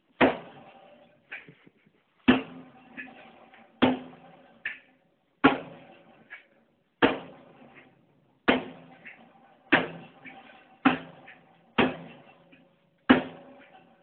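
A knife stabbed into the sheet-metal shell of a water heater about ten times, punching holes in it; each blow is a sharp metallic bang with a brief ringing from the tank, with a few fainter taps in between.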